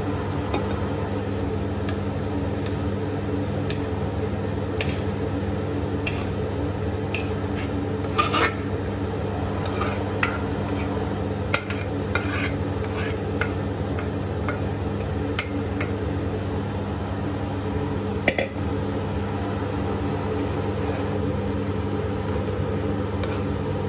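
Metal spoon scraping and clinking against a metal pot and a pressure cooker as cooked rice is spooned out and stirred into the vegetables, in scattered irregular clinks over a steady hum.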